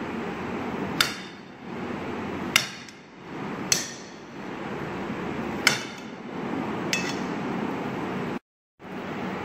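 Kitchen knife blade striking a glass bowl as it cuts watermelon into chunks: five sharp, unevenly spaced clinks with a short ring, over steady background noise.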